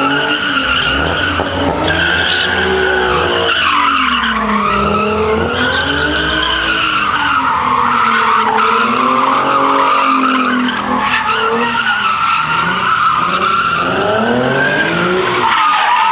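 Nissan 370Z's V6 engine revving up and down over and over while its rear tyres squeal without a break as it spins donuts in a burnout.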